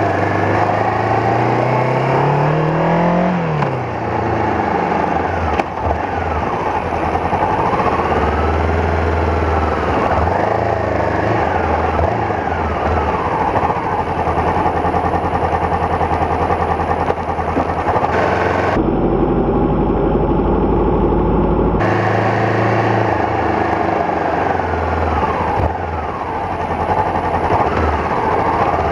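Honda CB500X parallel-twin motorcycle engine running as the bike rides through town traffic, its pitch rising over the first few seconds and then falling back.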